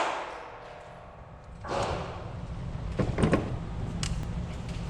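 9mm pistol fire: the echo of a shot dies away at the start, a duller report comes about a second and a half in, then a few light clicks, and another loud shot lands right at the end.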